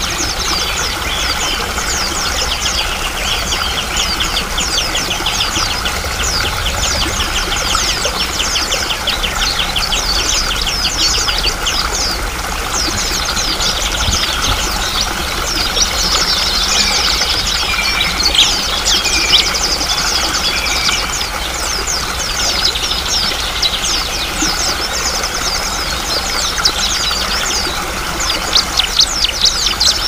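Steadily running stream water with songbirds singing over it in fast trills of rapidly repeated high notes.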